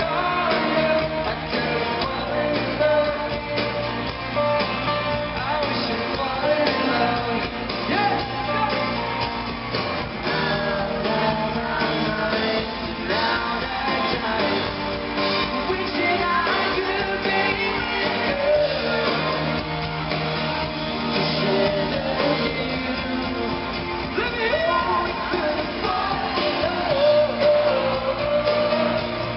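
Pop-rock band playing a song live in an arena, with lead vocals over electric guitars, bass and drums, heard through the hall's echo.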